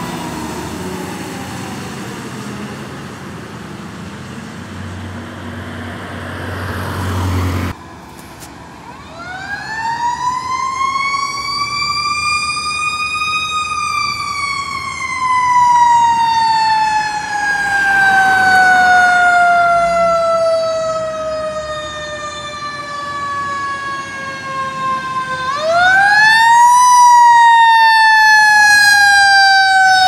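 Fire truck siren, first winding down over a heavy engine rumble that breaks off abruptly. The siren then winds up, coasts slowly down for about twelve seconds, and winds up again near the end before falling off once more.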